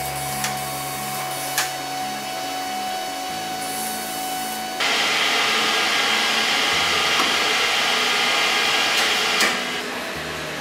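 Machine-shop machinery running with a steady hum. About five seconds in it changes to the louder, steady hiss of a metal lathe turning and cutting a workpiece, which drops back to a lower machine noise near the end.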